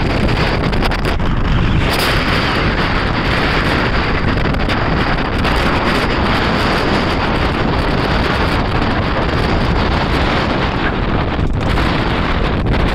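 Steady, loud rush of wind on the microphone from riding in an open-sided vehicle at road speed, with the vehicle's running noise blended in.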